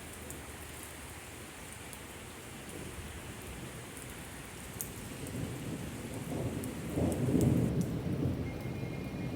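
Steady rain falling, with a rumble of thunder that builds about halfway through, peaks a couple of seconds later and then eases off.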